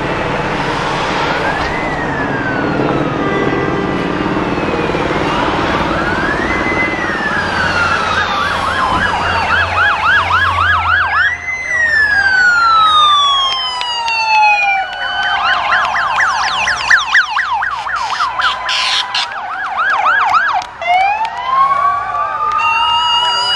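Police motorcycle sirens approaching: slow rising-and-falling wails, several overlapping, switching to a fast yelp about fifteen seconds in, then a new wail rising near the end.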